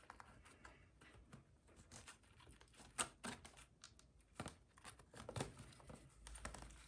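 Faint, scattered light taps and rustling from a feeder-cricket container being handled and tapped to shake the crickets out, with the clearest knocks about three and four and a half seconds in.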